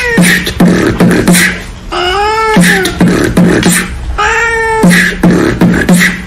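A cat meowing in time to a steady beatbox-style beat of clicks and short low pulses. The meows are long, each rising then falling in pitch: one tails off at the very start, and full ones come about two and about four seconds in.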